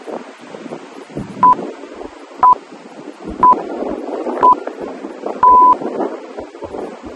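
Workout interval timer counting down: four short beeps of the same pitch a second apart, then one longer beep that marks the start of the exercise interval.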